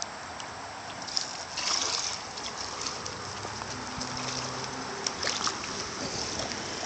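Shallow creek water running and trickling, with brief splashing about a second and a half in.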